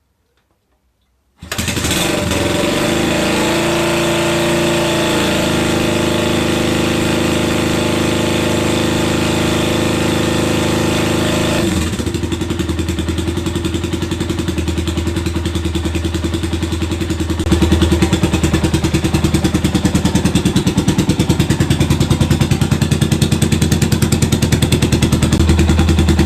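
Suzuki Grasstracker Big Boy's single-cylinder engine starting about a second and a half in, on its first start after the carburettor was put back to stock and the oil and filter were changed. The revs rise and fall briefly just after it catches, then it runs steadily.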